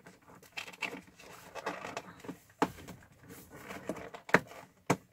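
Cardboard advent calendar door being pried open by hand and the item inside worked loose: scraping and rustling of cardboard, with several sharp clicks and taps, three of them standing out in the second half.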